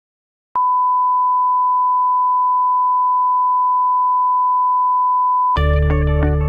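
Steady 1 kHz line-up test tone, the tone that goes with colour bars, starting about half a second in and cutting off after about five seconds. Music starts near the end.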